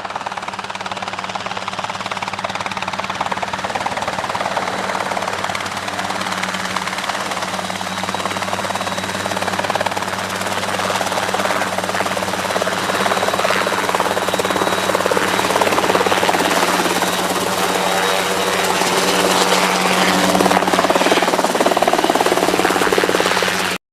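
Ultralight helicopter running: a steady engine hum under rotor and engine noise that grows gradually louder and cuts off suddenly near the end.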